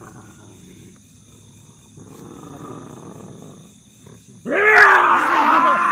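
A person growling and roaring like a tiger in a trance: a faint throaty growl a couple of seconds in, then a loud, strained roar about four and a half seconds in that carries on to the end. The group takes it for a tiger spirit speaking through him.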